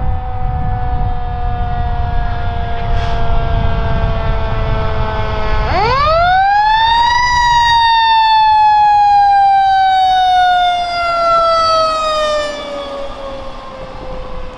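Fire truck's mechanical Q siren winding down, then spun up sharply about six seconds in to a high wail and left to coast slowly back down. A low engine rumble sits under the first half.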